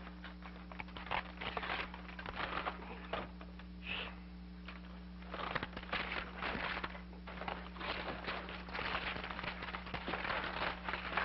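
Wooden slatted folding chair clattering and creaking as a man struggles inside it: a run of irregular clicks and knocks that gets busier about halfway through, over a steady low hum.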